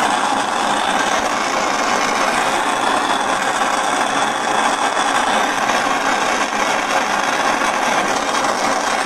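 Large handheld gas torch flame burning with a steady rushing hiss as it heats a ring's solder join nearly to the point where the solder melts.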